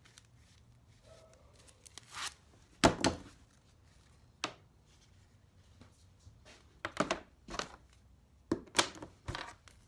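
Armored BX cable sheath, which proves to be aluminum, being cut and worked open by hand: a string of sharp metallic snips and clacks, loudest about three seconds in and again in a cluster near the end.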